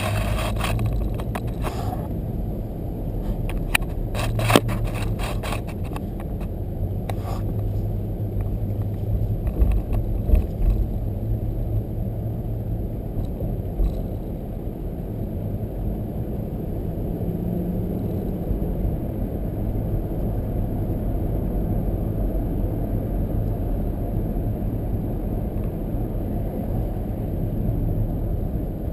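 Steady low road rumble of a car being driven, with a few sharp knocks or bumps in the first ten seconds or so.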